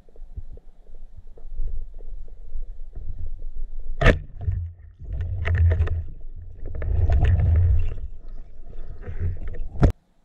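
Muffled underwater rumbling and water movement, heard through a camera's waterproof housing, swelling louder twice in the second half. A sharp click about four seconds in and another just before the sound cuts off.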